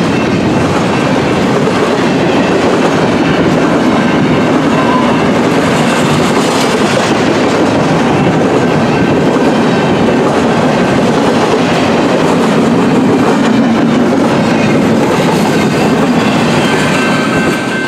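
Empty BNSF intermodal well cars rolling past: a loud, steady rolling noise of steel wheels on rail.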